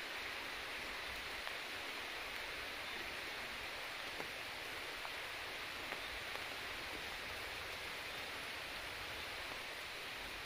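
Steady, even hiss of forest ambience with a few faint clicks scattered through it.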